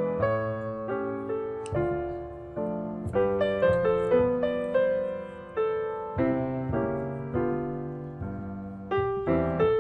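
Background piano music: a gentle melody of single struck notes, each ringing and fading before the next.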